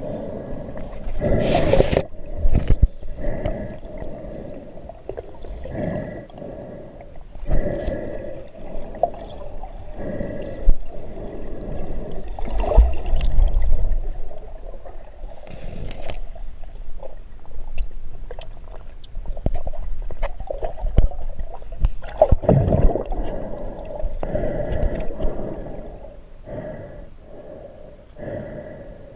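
Underwater sound picked up by a GoPro Hero camera in its waterproof housing as it moves through river weeds: muffled water noise with irregular knocks and swells.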